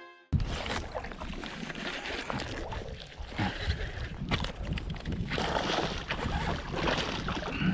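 Water lapping and splashing around a float tube, with wind on the microphone and scattered small knocks and clicks.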